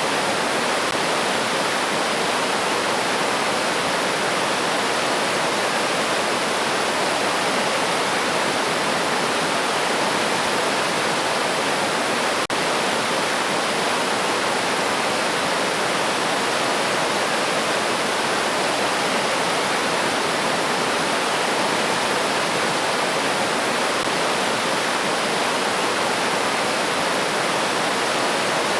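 River water rushing steadily over stones, an even unbroken flow, with one brief click about halfway through.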